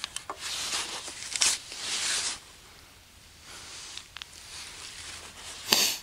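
Close rustling and scraping handling noises with a few sharp clicks, loudest over the first couple of seconds and again in a short burst near the end.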